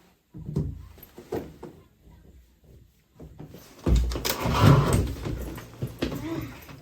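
A few short knocks, then a louder rattling, scraping clatter lasting a couple of seconds: hard objects being handled and moved.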